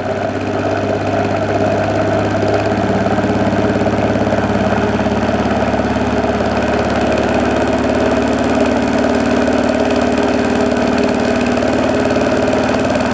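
Homemade Bedini SG pulse motor, a magnet rotor wheel driven by pulsed coils, running up to speed with a steady hum. It gets a little louder over the first couple of seconds, and a tone steps up in pitch about two and a half seconds in, then holds.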